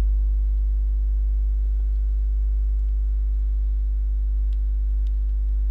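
Steady low electrical hum with a few fainter fixed tones above it, unchanging throughout; no speech.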